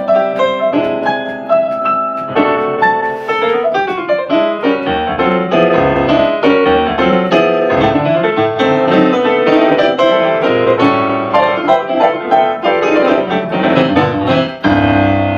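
Solo jazz piano played on a digital stage piano: quick, busy runs and chords in a swinging style, ending on a held chord near the end that cuts off abruptly.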